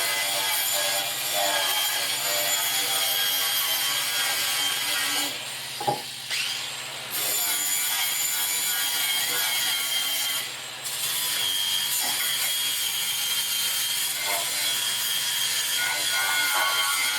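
A power tool scouring corrosion and rust off a metal battery hold-down: harsh steady scraping under a high whine, with two short pauses about five and eleven seconds in.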